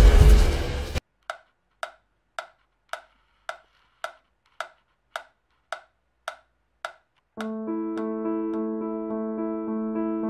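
Soundtrack music: a loud rushing noise cuts off about a second in, then about eleven sharp ticks come roughly two a second, and electric piano music with repeated chords begins about seven seconds in.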